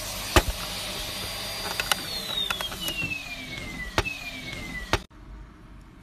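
Vacuum cleaner running with a steady high motor whine, with a sharp click about half a second in. After another click about two seconds in, the whine falls steadily in pitch as the motor winds down, and the sound cuts off abruptly near the end.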